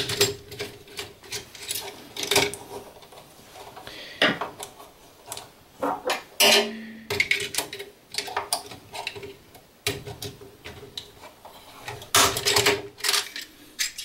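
Irregular small clicks and plastic knocks as a DIN-rail fuse holder is unscrewed from its wires and unclipped from its rail in an electrical enclosure. The loudest clatter comes about six seconds in and again near the end.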